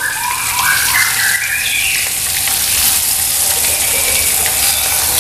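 Floured fish pieces frying in shallow oil in a wok, with a steady, dense sizzle. A brief wavering squeaky tone sounds over the sizzle in the first two seconds.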